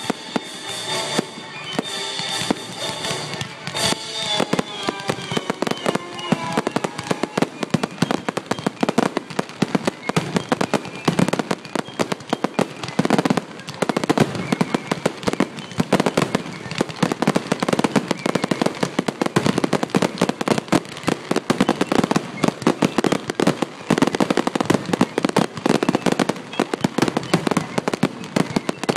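Fireworks display: aerial shells bursting in quick succession, a dense run of bangs and crackling pops that gets busier after the first few seconds.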